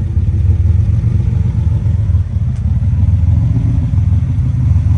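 Nissan 300ZX (Z31) V6 engine running steadily.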